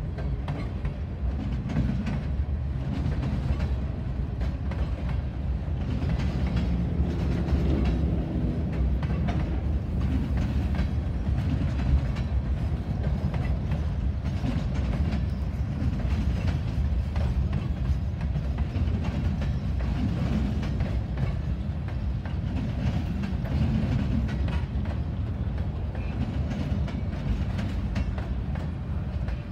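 Freight train boxcars rolling past at steady speed: a continuous low rumble of steel wheels on rail with a running patter of clicks as the wheels pass over rail joints.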